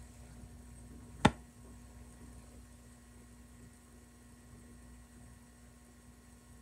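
Faint steady hum in a quiet room, broken just over a second in by a single sharp click.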